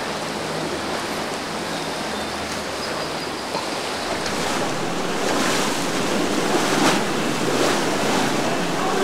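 Surf and breaking waves at a rough inlet, swelling louder about halfway through with a few splashes, over a low steady drone of boat engines. Wind buffets the microphone.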